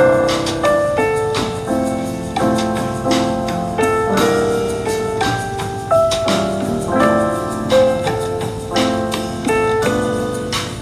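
Background lounge jazz led by piano, with notes changing in a steady melodic run.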